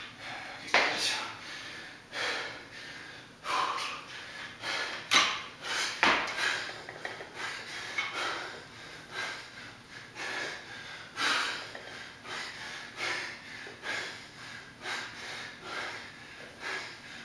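A man breathing hard in sharp, noisy puffs and gasps, about one every second or two, while exerting himself through heavy barbell thrusters.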